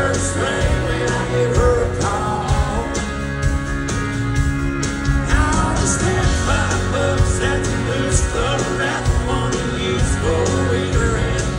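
Live country-rock band playing: guitars and a steady drum beat, with a male lead voice singing over them.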